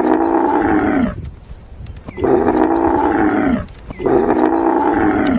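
Camel calling: three long, loud calls of about a second and a half each, separated by short pauses, each dipping slightly in pitch as it begins.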